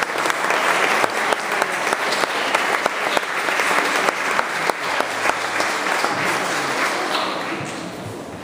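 Audience applauding, a dense patter of many hands clapping that fades away over the last two seconds or so.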